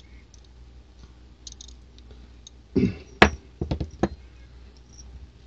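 Sharp metallic clicks and clinks of small steel parts being handled: a socket, bolt and small combination wrench as a nut is worked back off. The clicks come in a cluster about three seconds in, the first the loudest, with a few faint ticks before.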